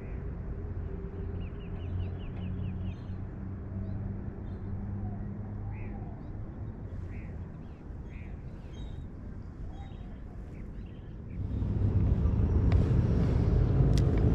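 Marina ambience: a steady low hum with a few faint bird chirps. About two-thirds of the way through it gives way to a louder rushing noise, with a few sharp clicks near the end.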